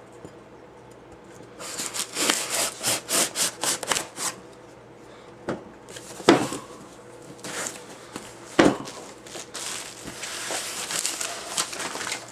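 A bayonet blade slitting the packing tape on a cardboard box: a quick run of scraping cuts. Then the box is handled and its flaps pulled open, with two sharp knocks and a stretch of rustling near the end.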